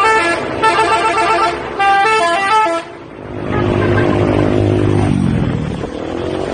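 Bus 'telolet' musical horn playing quick runs of stepped notes in short phrases. About three seconds in it gives way to a lower, steadier tone that sinks in pitch.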